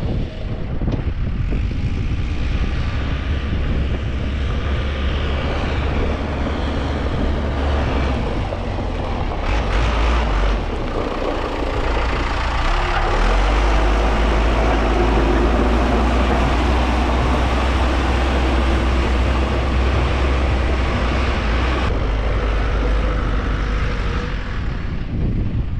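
Heavy vehicle engine running steadily under load, its low rumble growing louder about ten seconds in and easing off near the end.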